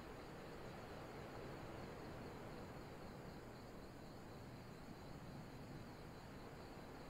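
Faint, steady wash of ocean surf on a beach at night, with a high, continuous trilling of night insects over it.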